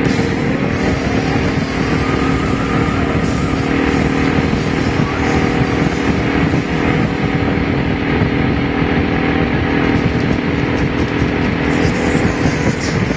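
Honda V-Twin Magna 250's V-twin engine running at a steady cruise, with heavy wind rush over the microphone; the pitch rises briefly about a second in and changes again near the end.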